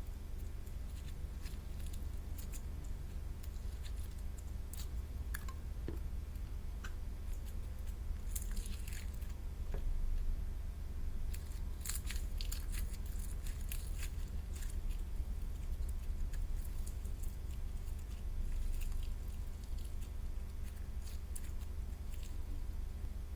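Slime being squished and worked by hand, giving scattered small wet clicks and crackles, over a steady low hum.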